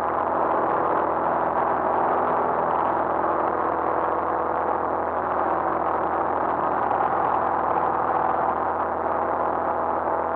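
Light aircraft's piston engine and propeller droning steadily in cruise, heard inside the cockpit.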